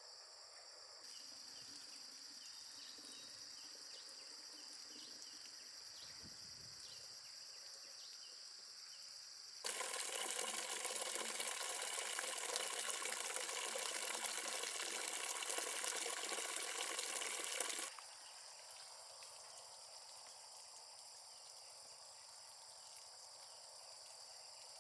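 A steady high drone of insects throughout. For about eight seconds in the middle, a much louder, even rush of running water cuts in and stops abruptly.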